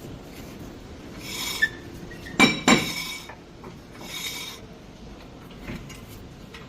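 Hyundai Sonata's front brake making a rasping, metallic rub that swells about every three seconds, as with each slow turn of the wheel, with two sharp clinks about two and a half seconds in. It is the brake noise the pads and rotor resurfacing are meant to cure.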